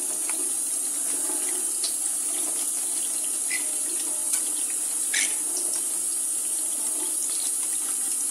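Kitchen tap running steadily, its stream splashing onto a hand and into a stainless steel sink.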